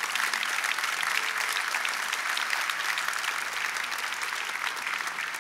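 Congregation applauding steadily, a dense, even patter of many hands clapping.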